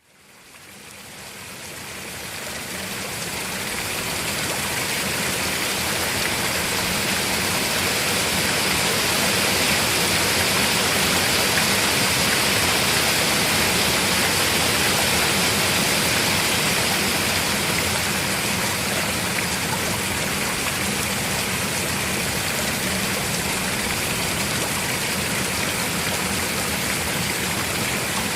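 Heavy rain in a downpour: a dense, steady hiss of falling water that fades in over the first few seconds and then holds even.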